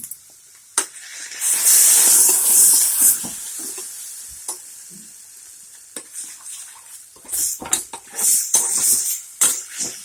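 A pan of barbecue sauce sizzling loudly as ketchup goes in on top of the hot onions, the sizzle dying down over a few seconds. Then a spoon stirs the sauce in quick, repeated strokes near the end.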